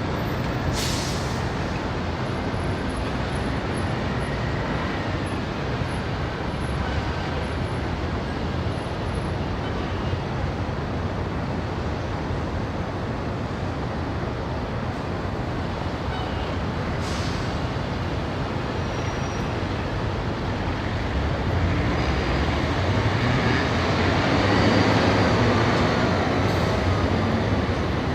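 Dense Indian city street traffic: a steady mix of cars, motorbikes and auto-rickshaws passing. There are a few short hisses, and a heavier vehicle passes louder over the last several seconds.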